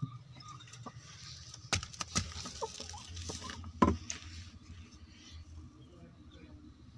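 Handling noise at a hen's nest box: knocks and rustling straw as a wooden door is pulled open and a hand reaches under a broody desi hen sitting on her eggs. The sharpest knock comes a little before four seconds in, and the hen gives a few short soft calls.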